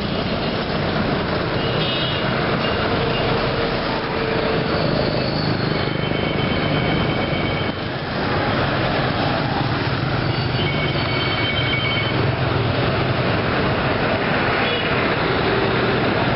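Street traffic of small motorcycles and pickup trucks running past, a steady mix of engine and road noise. Horns sound over it: short beeps about two seconds in, then longer held honks around six and eleven seconds in.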